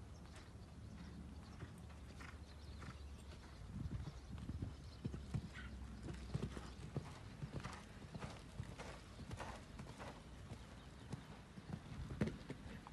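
A show-jumping horse's hooves beating on a sand arena at a canter, an even run of soft thuds. A louder thud comes near the end as it goes over a fence.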